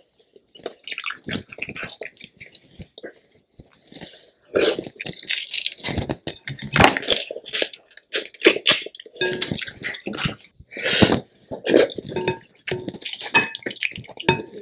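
Close-miked wet chewing, sucking and lip smacks as king crab leg meat is eaten, heard as irregular sharp clicks and squelches. Near the end comes the crackle of crab shell as a leg is pulled apart at the joint.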